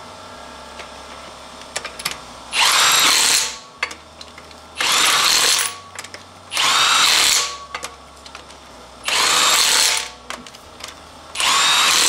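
Impact wrench hammering on a car wheel's lug nuts, in five separate bursts of about a second each, one nut after another.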